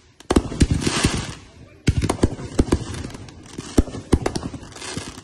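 Aerial fireworks going off: a quick irregular run of about a dozen sharp bangs from shells launching and bursting, with crackling and hissing between them.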